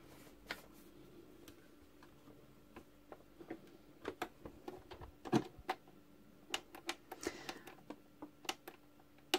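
Irregular clicks and taps from handling fabric and the controls of a Brother computerized sewing machine fitted with a gathering foot, as the fabric is set under the foot. The machine is not yet sewing. A faint steady hum runs underneath.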